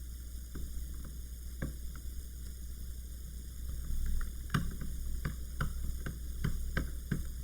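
Small sharp clicks of a screwdriver working screws out of a laptop's bottom panel: a few scattered at first, then a quick run of them about three a second from about halfway, over a steady low hum.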